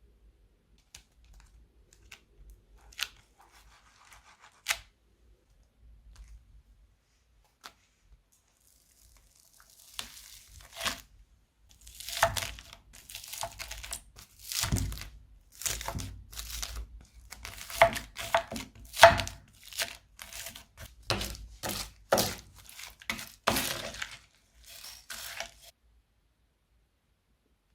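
Crunchy slime being squeezed and pressed by hand. A few scattered clicks and pops come first. About ten seconds in, a run of crackling, crunching bursts follows one after another, then stops a couple of seconds before the end.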